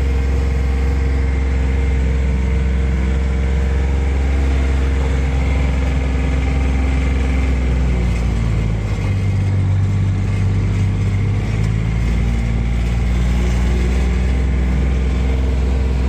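Engine of a small open-cab utility vehicle running steadily as it drives along, its note shifting about halfway through.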